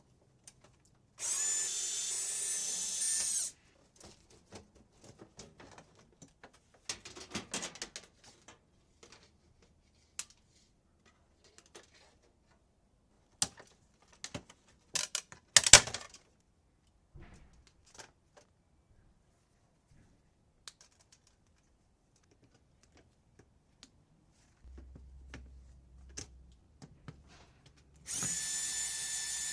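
Power drill-driver spinning out screws from a microwave's sheet-metal frame in two steady runs of about two seconds each, one near the start and one near the end. In between, sharp clicks and metallic clatter of screws and panels being handled, loudest in a cluster of knocks about halfway through.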